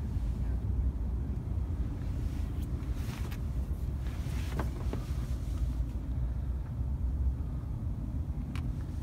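Wind buffeting the microphone: a steady, uneven low rumble, with a few faint clicks.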